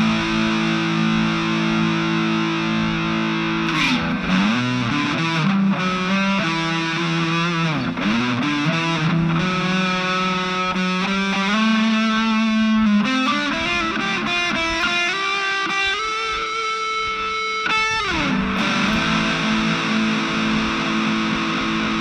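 Epiphone Les Paul 100 electric guitar played through the distortion channel of an Aroma TG-08 mini amplifier. It opens on a held distorted chord, moves into single-note lead lines with bends and slides, and settles back onto a held chord near the end.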